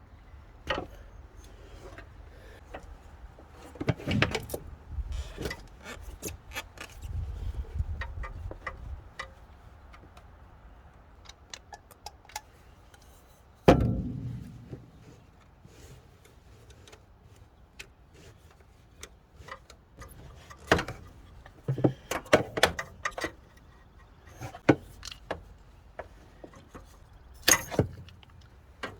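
Scattered metallic clinks, rattles and knocks of hand tools and parts being handled on an engine, with one sharp, loud knock about halfway through and a quicker run of clicks near the end.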